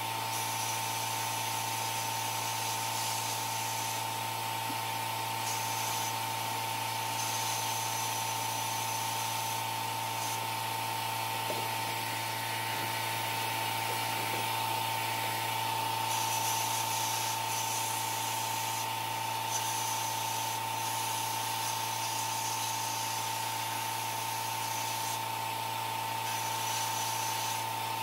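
A small power tool running steadily at one constant pitch, with a hiss over it that comes and goes every few seconds.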